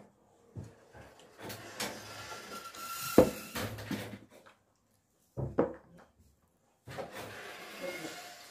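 Tableware being handled on a table: a few short knocks and clatters of plates, bowls and a plastic cup, the loudest about three seconds in, with scuffing between them.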